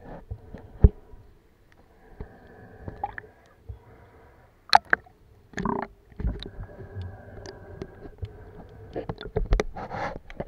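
Water sloshing and gurgling around a camera held at and just below the sea surface, with scattered sharp clicks and knocks and a few short louder splashes.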